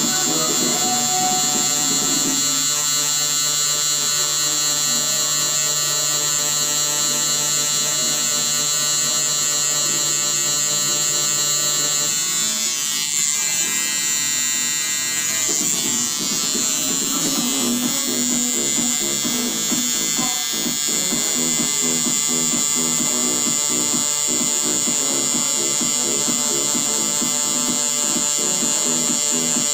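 Tattoo machine buzzing steadily as it fills in black ink on EVA foam practice skin in small circular strokes.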